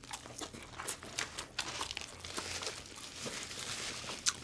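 Close-miked eating: chewing of sandwiches with the crinkling of paper sandwich wrappers, heard as scattered small crackles and clicks, one sharper click near the end.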